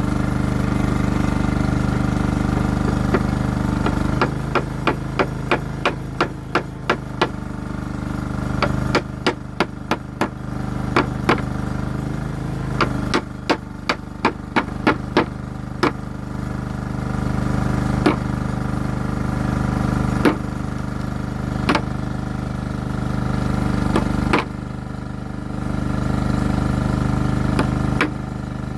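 Hammer tapping a rear crankshaft oil seal into its cover on a Cummins 6BT diesel: sharp metallic taps in quick runs of about two or three a second, then a few single taps farther apart near the end. A steady machine drone runs underneath.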